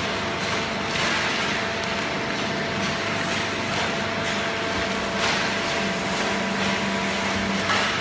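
A fully automatic horizontal waste-paper baler and its inclined chain conveyor running: a steady machine hum broken by irregular clanks and rattles.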